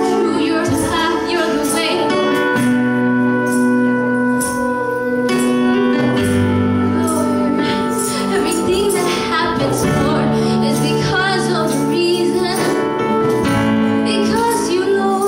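Live worship music: held keyboard chords with a singing voice and shaken jingling percussion.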